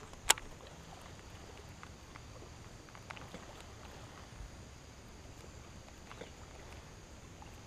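Quiet open air over the water with one sharp click a fraction of a second in, then a few faint ticks.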